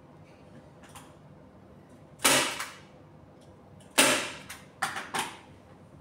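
Hand staple gun firing sharp snaps as fabric is fastened to the bed frame: two loud shots about two seconds apart, then two lighter ones in quick succession near the end.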